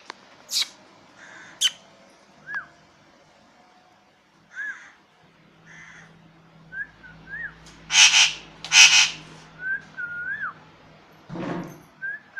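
Pet parrot calling: a few short sharp squawks, several brief whistled notes that bend up and down, and two loud harsh screeches about eight and nine seconds in.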